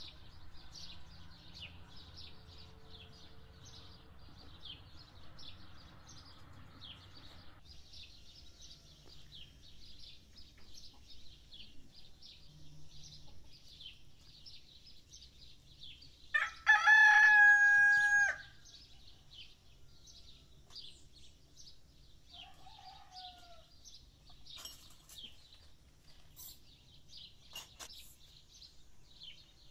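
A rooster crows once, a loud call of about two seconds a little over halfway through, over the steady high chirping of small birds.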